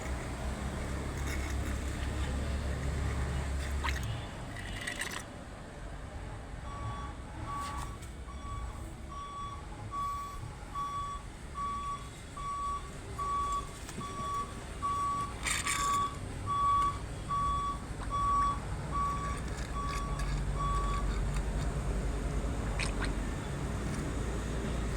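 Vehicle reversing alarm beeping at a steady pace, a little over one beep a second, over a low engine rumble; one sharp knock about halfway through.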